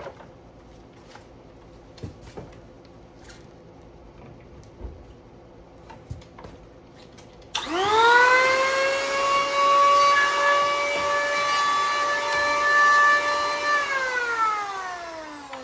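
Electric hand planer motor switched on about halfway through, rising fast to a steady high whine, running about six seconds, then switched off and winding down with a falling whine. Before it, a few light clicks and knocks of the tool being handled.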